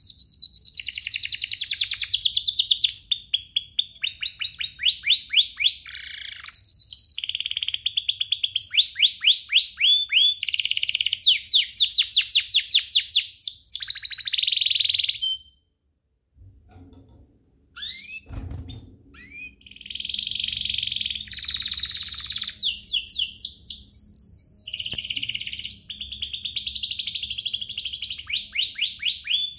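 Domestic canary singing: long, rapid trills and rolls of fast repeated notes. The song breaks off for a couple of seconds past the middle, where a single dull knock is heard, then resumes.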